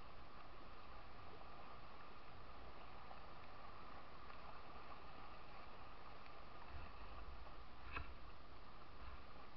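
Steady hiss of water and wind from a kayak out on a river, with low rumbles coming and going and a single brief knock about eight seconds in.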